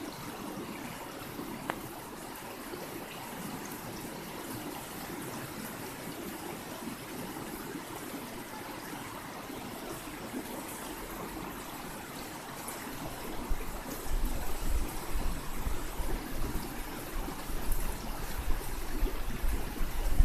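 River water flowing and trickling in a steady rush. About two-thirds through, a loud uneven low buffeting rumble joins in.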